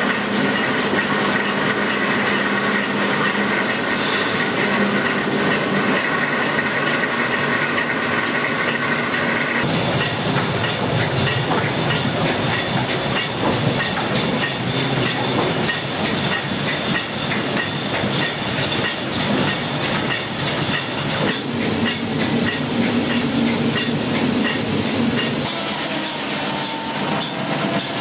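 Old estate sawmill machinery running with a steady mechanical clatter. The sound changes abruptly about ten seconds in and again a little past twenty seconds.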